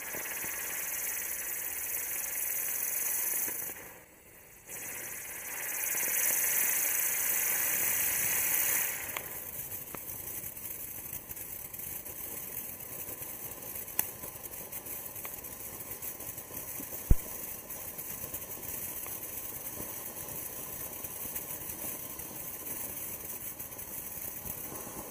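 Firework wheel-and-fountain spraying sparks with a steady hiss. It starts loud, dips briefly about four seconds in, surges again until about nine seconds, then settles into a quieter steady hiss. Two sharp pops stand out, the louder one about seventeen seconds in.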